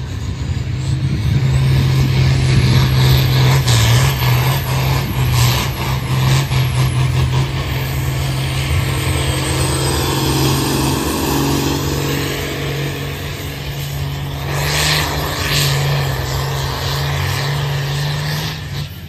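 New Holland TM120 tractor's diesel engine running hard under load as it pulls a weight-transfer sled, a steady deep engine note that swells about a second in.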